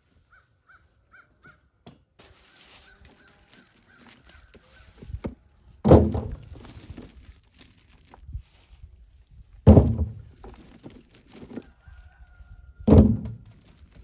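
Three loud thuds, about three and a half seconds apart, as armloads of dried ear corn are dropped into a plastic barrel, with lighter clattering of ears between them. A crow caws five times in quick succession at the start.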